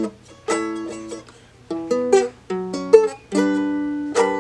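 Seagull Merlin, a four-string dulcimer-style fretted instrument tuned D-A-D-D, played: strummed chords, a quick run of short picked notes in the middle, then chords left ringing near the end.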